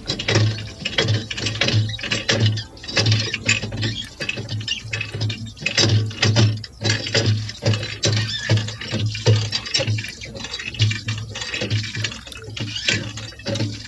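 Water gushing and splashing into a small cement pond from the spout of a miniature hand pump, coming in uneven spurts.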